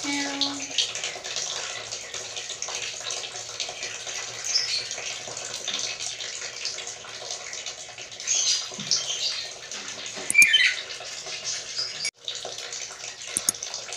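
Black-capped lory giving a few short, squeaky calls, the loudest two coming a little past the middle, over a steady background hiss.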